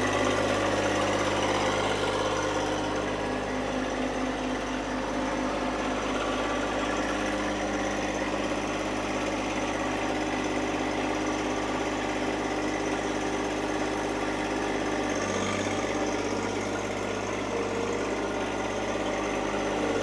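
John Deere compact tractor's diesel engine running steadily, with a brief change in its note about fifteen seconds in.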